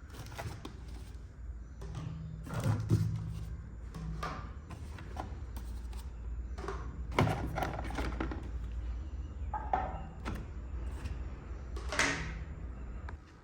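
Small plastic toy kitchen pieces being handled and set down: scattered clicks, taps and light knocks, a few of them louder, over a low steady hum.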